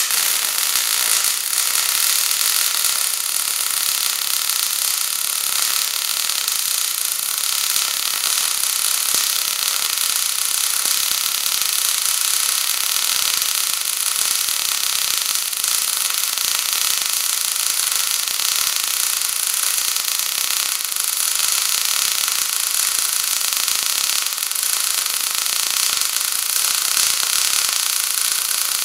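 MIG welding arc burning continuously on an uphill vertical weld on steel plate: a steady, unbroken crackle and hiss.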